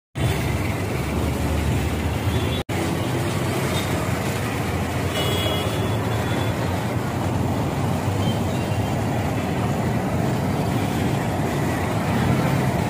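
Busy city road traffic: a steady mix of bus, car and motorbike engines and tyre noise.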